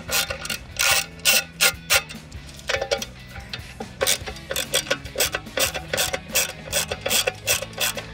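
Ratcheting driver clicking in quick, uneven runs as it backs the screws out of a car's aluminium engine computer case.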